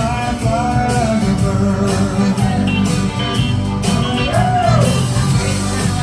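Recorded song with a singer over a steady beat, played loud as dance music for a line dance.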